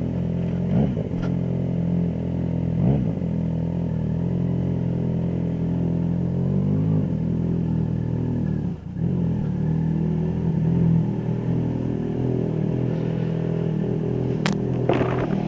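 Yamaha XJ6 motorcycle's inline-four engine running steadily at low revs, with a few small rises in pitch and a brief drop about nine seconds in. A single sharp click comes near the end.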